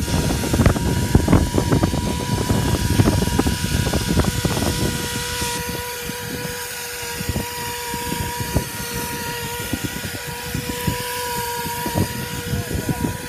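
Fiberglass chopper spray gun and its pump rig spraying cold-applied roof coating: a steady mechanical whine holding one pitch over a hissing spray. An uneven low rumble is stronger in the first five seconds.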